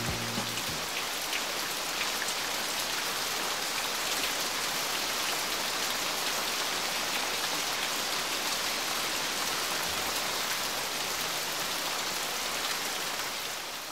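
Steady rain, an even hiss of countless drops with fine ticks scattered through it, fading out near the end.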